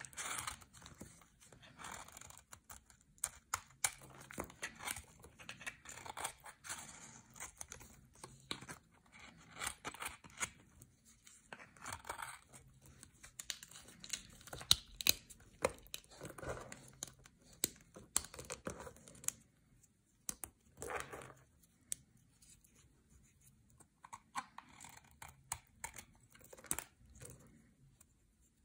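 A blade scraping and shaving a dry, brittle bar of soap, then fingers crumbling and crushing the soap flakes and shavings. It gives irregular crisp crackles and snaps, with a quieter stretch past the middle.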